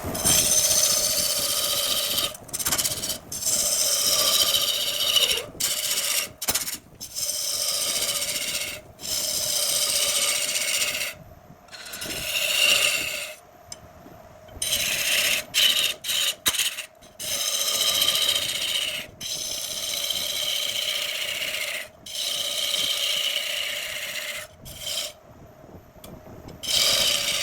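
A tool working a spinning block of jackfruit wood on a wood lathe: a scraping, hissing cut in repeated passes of one to three seconds, broken by short gaps, over the steady hum of the lathe.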